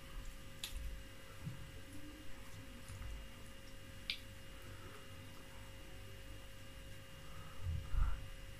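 Quiet eating by hand: fingers working oatmeal fufu and soup on a plate with a couple of light clicks, then a soft mouthful sound near the end as a bite goes in, over a steady electrical hum.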